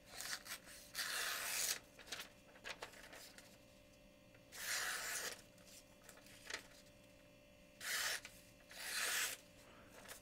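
Thin blade of a TRM knife slicing through catalog paper in about four separate strokes, each a dry swish of cut paper, as a sharpness test. Paper rustles as the sheet is handled between cuts.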